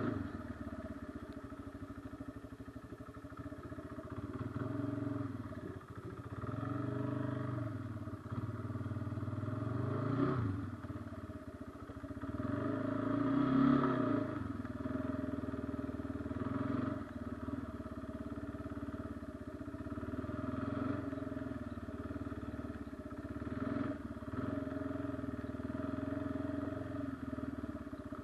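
Kawasaki Brute Force 300 ATV's single-cylinder engine running as the quad is ridden along a trail. The engine note rises and falls with the throttle, swelling twice and loudest about halfway through.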